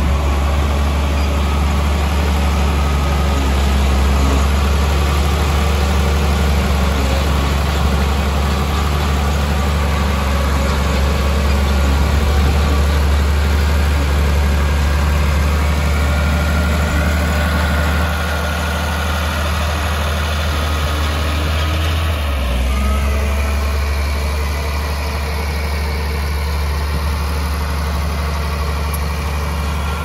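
Heavy diesel engine of earthmoving machinery running steadily with a deep low note, which shifts briefly about two-thirds of the way through.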